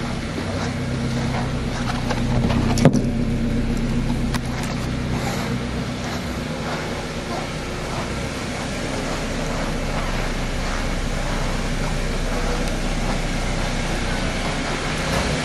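Suzuki SX4 sedan's engine idling steadily, with one sharp knock about three seconds in.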